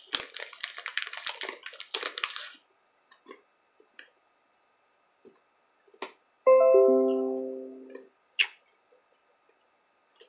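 Plastic candy bag rustling and crinkling for about two and a half seconds. About six and a half seconds in, a short plucked-string chord of several notes rings and fades away over about a second and a half.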